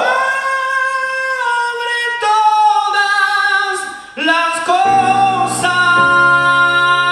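Singing in a Cuban bolero: a voice holds long notes unaccompanied, breaking briefly about four seconds in, then keyboard chords come in under it about five seconds in.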